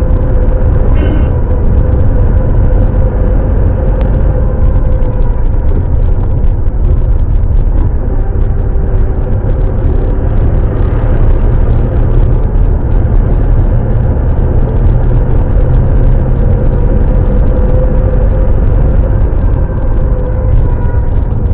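A moving vehicle's engine and road noise heard from inside the cabin: a steady, loud low rumble with a faint engine drone.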